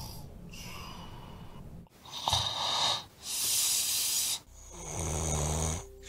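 A person snoring: several rough, buzzing snores with a hissing breath between them.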